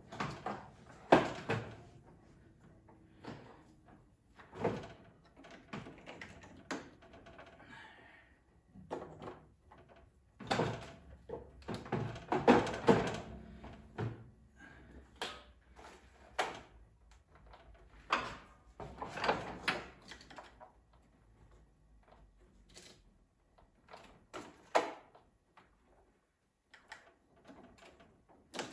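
Scattered knocks, clunks and rattles of hands working around a garden tractor's engine bay, hooking up jumper cables and clamps to boost its dead battery. The sounds come in irregular groups with short quiet gaps between them.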